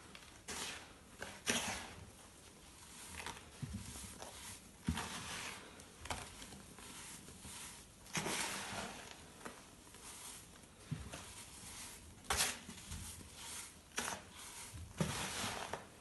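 Hands crumbling and sifting dyed baking soda: soft crunches of clumps breaking, mixed with the hiss of powder pouring through the fingers, in irregular bursts.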